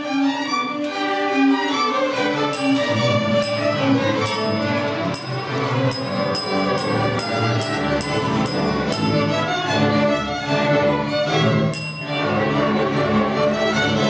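String orchestra of violins, cellos and double basses playing a piece in sustained, bowed notes, with a brief break about twelve seconds in before the strings come back in.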